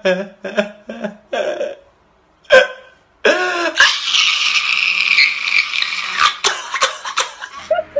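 A man screaming: a few short choked sounds and a sharp cry, then one long, loud, raw scream of about four seconds that cuts off abruptly near the end.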